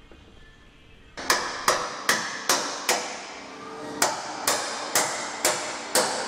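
Hammer striking steel in quick, even blows, about ten of them with a short pause after the fifth, each ringing briefly. The blows drive a tool into the edge of a steel security door set as part of a forced-entry leverage attack.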